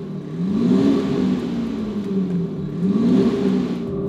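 Maxhaust active sound booster speakers at the exhaust playing their 'Race 02' synthetic sports-exhaust sound over a running diesel engine. It revs twice, the pitch climbing and falling back each time, over a steady idle.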